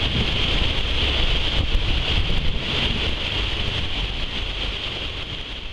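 Wind buffeting the microphone aboard a moving boat, over the steady rush of water churned up in its wake, easing a little toward the end.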